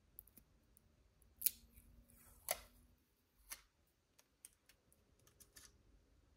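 Thin clear plastic protective film peeled off a gimbal's round pad, crinkling in a few sharp crackles about a second apart, followed by smaller ticks.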